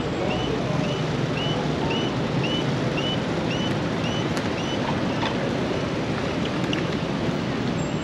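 Pedestrian crossing signal chirping about twice a second, each chirp short and high-pitched, over steady city traffic noise.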